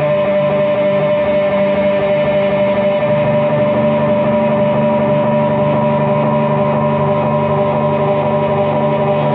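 Electric guitar, a Fender Road Worn '50s Telecaster with Lindy Fralin Blues Special pickups, played through effects pedals into an amp, holding a sustained droning wash of notes at a steady level with no distinct picked attacks.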